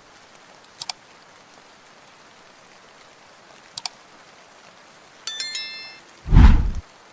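Steady rain, with a couple of sharp double clicks, a bright shimmering chime of many high tones a little past five seconds in, and a short deep boom near the end that is the loudest sound.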